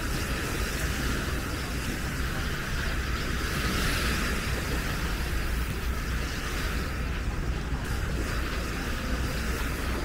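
Steady outdoor noise of wind rumbling on the microphone over the wash of sea waves on a beach.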